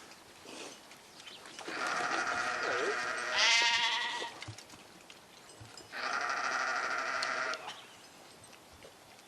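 Livestock bleating: a long bleat, then a louder quavering bleat about three and a half seconds in, then another long bleat about six seconds in.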